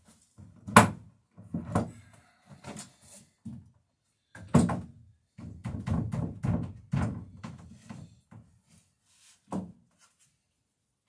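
Irregular wooden knocks and thunks against the dory's wooden hull as the planking is worked. A sharp, loud knock comes about a second in, then a busier run of knocks in the middle and a last single one near the end.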